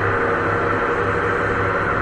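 2008 Hotpoint washing machine on its spin cycle, the motor turning the drum and running steadily with a humming tone. The owner hears a rubbing sound in the spin, which he puts down to either a loosening belt or the drum bearings.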